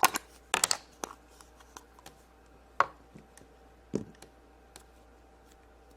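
Hands opening a small toy surprise package. There are a few sharp clicks and crinkling rustles in the first second, then single sharp knocks about three and four seconds in, with quiet in between.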